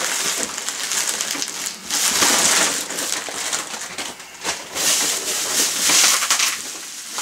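Bubble wrap and plastic packaging crinkling and rustling as a taped parcel is handled, in several uneven bursts.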